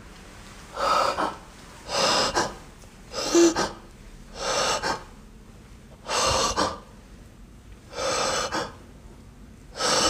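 A man breathing hard, about seven sharp, noisy breaths one every second or two, close to the microphone.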